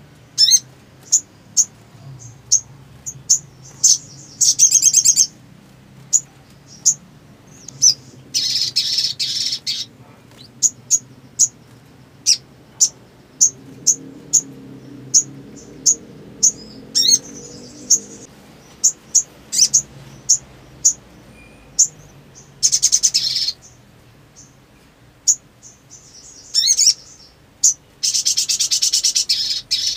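A sogok ontong (little spiderhunter) calling: sharp high chirps repeated about once or twice a second, broken four times by fast trilled runs a second or two long.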